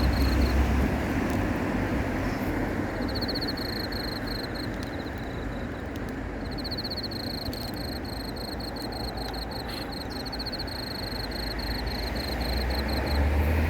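Night crickets chirping: fast pulsed trills at a high pitch, in bouts of a second to a few seconds with short pauses between them. Underneath is a steady low rumble.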